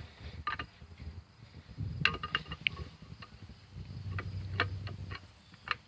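Scattered light metallic clicks and clinks, with low handling rumble, as a camshaft held by a claw hammer hooked on its gear bolt is worked into the cam bearings of a Chevy 3.1 V6 block.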